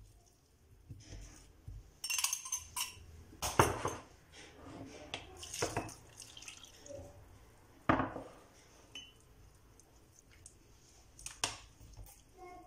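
A metal spoon clinking against a ceramic bowl, several separate sharp clinks, as soft pitted dates are broken up and stirred, with milk poured into the bowl around the middle.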